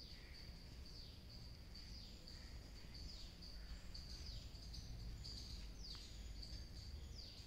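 Faint bird calls: short downward-sliding chirps repeating about once a second, over a steady high-pitched whine and a low background rumble.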